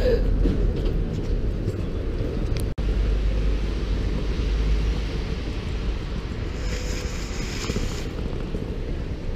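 Wind rumbling on the camera microphone over steady traffic noise at a kerbside bus stop, with a large coach standing close by.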